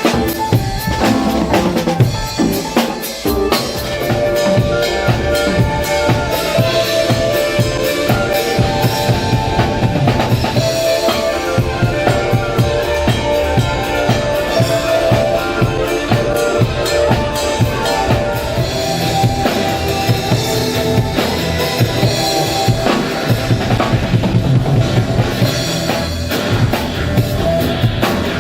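A drum kit playing a steady beat of bass drum and snare, with rimshots, over held pitched notes of accompanying music.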